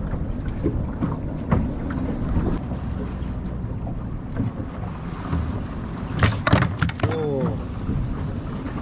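Wind on the microphone over a steady low rumble on a small boat's deck, with a few light clicks. About six seconds in comes a quick cluster of sharp knocks, followed by a brief falling squeal.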